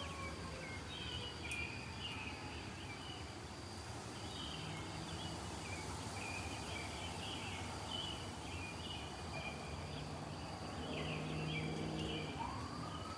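Small birds chirping in scattered bursts over the steady hiss of falling rain, with a thin high steady whine throughout. Near the end a brief low pitched sound rises in pitch.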